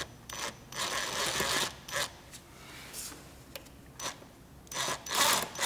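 Gloved hands working the rubber air intake tube at the throttle body: rubbing, scraping noises broken by several sharp clicks and knocks, loudest near the end.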